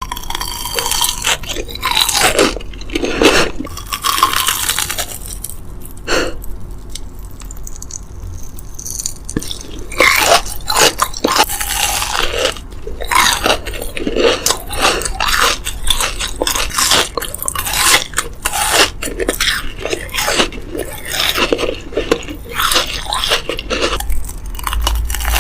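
Close-miked eating: bites and crunchy chewing of crisp food, a dense run of crackles and snaps. The crunching eases off for a few seconds about a quarter of the way in, broken by a single crack, then starts again and carries on steadily.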